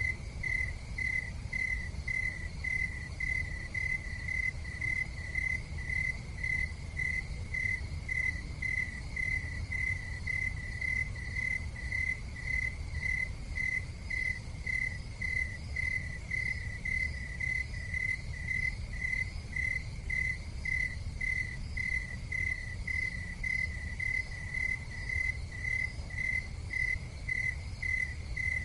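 A cricket chirping steadily, about two chirps a second, in an even unbroken rhythm over a low steady rumble.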